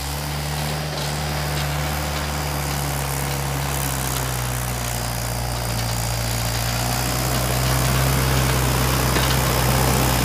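Mahindra tractor's diesel engine running steadily under load as it pulls a trolley loaded with mud, growing louder about two-thirds of the way through as it draws near.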